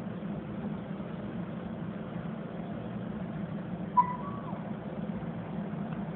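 A steady low mechanical hum, with one short high-pitched yelp from a small puppy about four seconds in.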